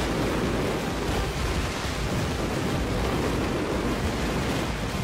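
Dense fireworks barrage: many shells and rockets going off at once, their bangs and crackle blurring into one steady wash of noise with no single report standing out.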